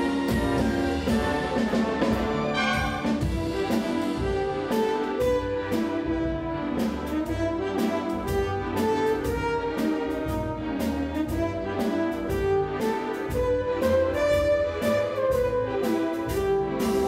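Symphony orchestra playing live, with brass and bowed strings over a steady beat.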